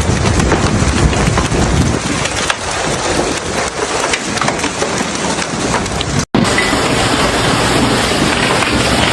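Heavy rain pouring down hard, with many sharp ticks of impacts on surfaces in the first part. There is a brief break about six seconds in, after which the downpour goes on as a steadier hiss.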